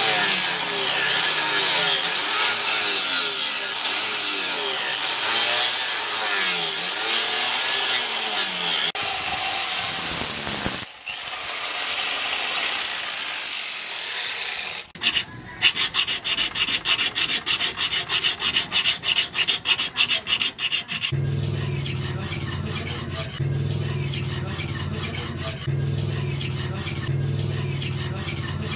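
Handheld angle grinder grinding a steel knife blade, its pitch wavering as the disc is worked along the edge. It gives way to rapid rhythmic scraping strokes of hand-working the blade, about three or four a second, and then a steady back-and-forth rubbing of the blade on a sharpening stone.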